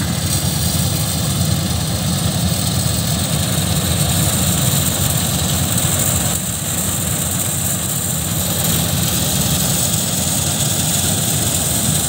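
KS 9300 self-propelled combine harvester, powered by an Ashok Leyland engine, running steadily and loudly as it cuts and harvests a dry standing crop.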